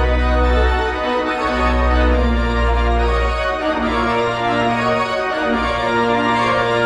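Organ music: long held chords over deep sustained bass notes that change every second or two.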